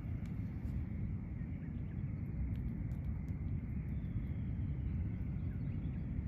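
Outdoor background noise: a steady low rumble, with a faint high hum and a few soft scattered ticks.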